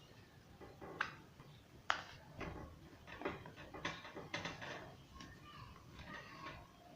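A sheet of A4 paper being folded and pressed flat by hand: two sharp crackles of the paper about one and two seconds in, then a run of rustling and creasing.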